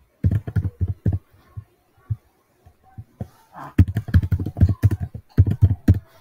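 Typing on a computer keyboard: a short run of keystrokes just after the start, then a longer, faster run from about four seconds in.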